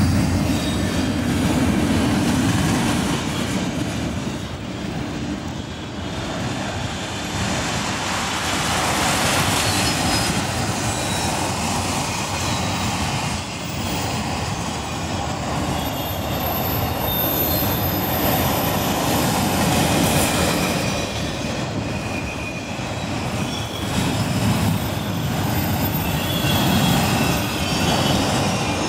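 Autorack freight cars rolling past steadily, their steel wheels rumbling on the rails, with thin high-pitched wheel squeal coming and going.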